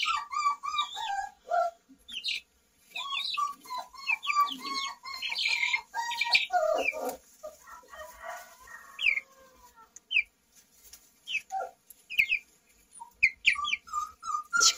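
Young chicks peeping: many short, high, falling peeps in irregular flurries, with a few brief lulls.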